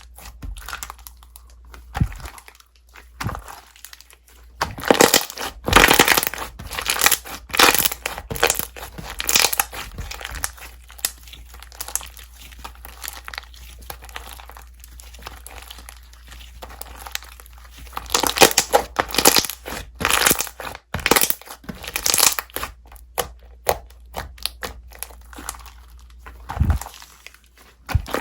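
Hands squishing, stretching and pressing a lime-green slime, giving irregular runs of crackling, crinkly pops, with quieter stretches in between.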